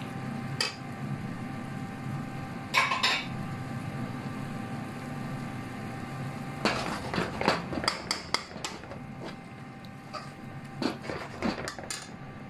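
Metal spoon knocking, clinking and scraping against a metal stew pot while chunks of potato are stirred through a lamb stew: a few knocks about three seconds in, then a quick run of clinks past the middle and a few more near the end. A steady low hum runs underneath.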